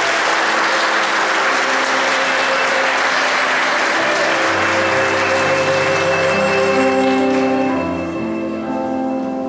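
Audience applauding, thinning out over the last couple of seconds, as instrumental music with long held notes comes in about four seconds in.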